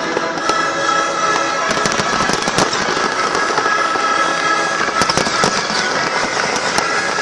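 Fireworks crackling and popping: many sharp cracks in quick runs, thickest about two seconds in and again about five seconds in, with music playing underneath.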